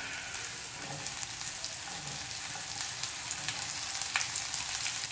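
Hot coconut oil sizzling steadily in a kadai as sliced bitter gourd is tipped in from a plate, with a faint tap about four seconds in.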